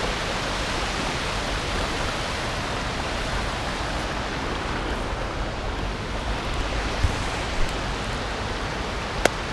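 Shallow river water rushing steadily, an even hiss of flowing water, with a single sharp click near the end.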